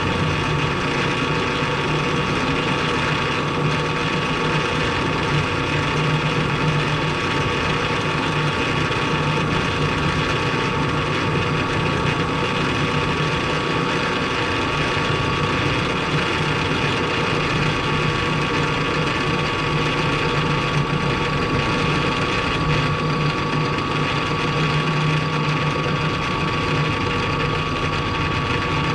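Milling machine running steadily through a cut on a steel T-nut blank, a constant motor hum with a steady high whine and no breaks.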